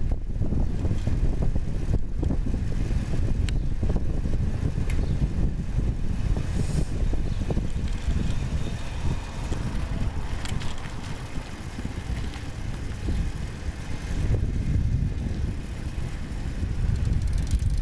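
Wind buffeting the microphone of a camera riding on a moving bicycle, a steady low rumble, with a few faint clicks and rattles from the bike over the road.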